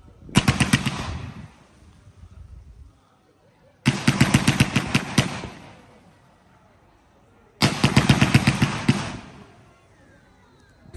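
Fireworks firing in three rapid volleys of bangs in quick succession, each volley lasting about a second and a half, with a couple of seconds' pause between them.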